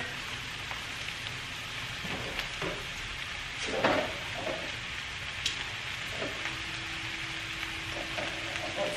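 Rice and mixed vegetables frying in a wok over a gas flame, a steady sizzle. There is a knock about four seconds in and a few fainter clicks, and a low steady hum comes in after about six seconds.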